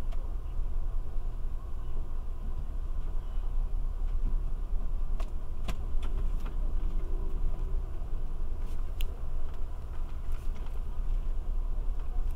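Steady low rumble inside an Amtrak Superliner passenger car standing at a station, with a scattering of light clicks and rattles in the middle.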